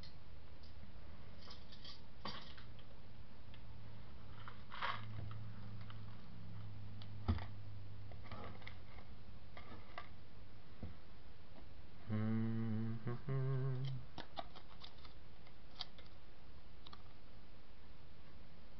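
Light clicks, taps and scrapes of a cardboard candy box and a paper matchbook being handled and set against a metal pan, over a steady low hum. About twelve seconds in comes a short wordless voice sound lasting a couple of seconds.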